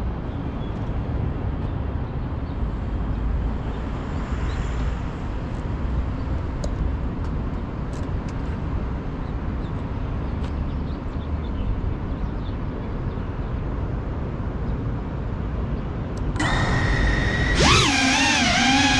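A low steady rumble on the GEPRC CineLog35 FPV quadcopter's own camera microphone while it sits on the ground. Near the end its brushless motors start whining at idle, then rise sharply in pitch as the throttle comes up and the quad lifts off, the whine wavering afterwards.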